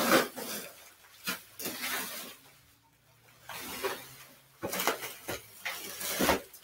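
Bubble wrap and plastic packaging rustling and crinkling, with irregular knocks as a large IQAir air purifier is lifted out of its cardboard box and stood upright.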